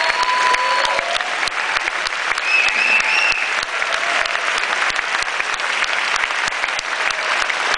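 Large audience applauding steadily, dense rapid clapping throughout, with a couple of brief whistles near the start and about three seconds in.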